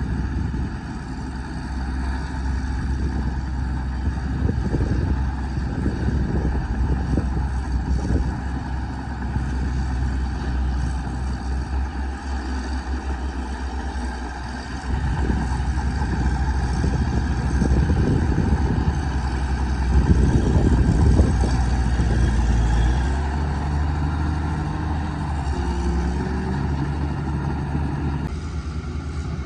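Caterpillar bulldozer's diesel engine running under load, with irregular knocking and clatter as it works, growing louder in the middle. Its engine note shifts in pitch near the end.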